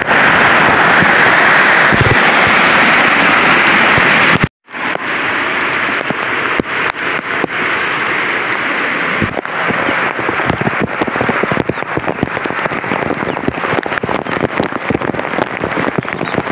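Steady rain, a dense hiss that cuts out suddenly about four and a half seconds in. It then comes back as a patter of many separate drops.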